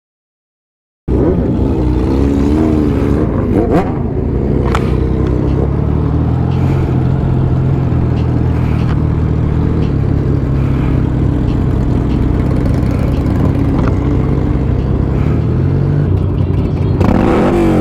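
Motorcycle engine running steadily while riding, with road noise. It cuts in after about a second of silence.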